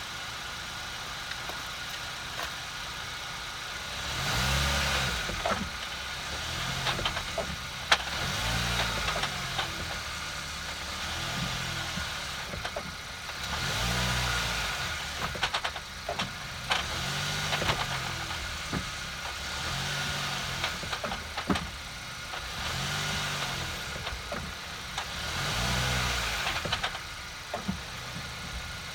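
Kia Cee'd JD engine idling, then revved in short repeated blips about every two to three seconds, with sharp knocking ticks heard through it: the knock the owner is recording.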